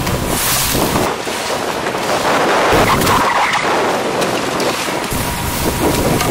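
Wind buffeting the microphone over rushing, splashing sea water beside a six-person outrigger canoe under paddle.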